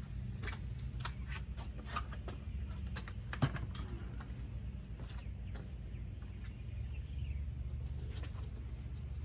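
Someone moving about on a concrete porch: light footsteps and scuffs, and a wooden rocking chair being pulled aside, with one sharper knock about three and a half seconds in, over a steady low hum.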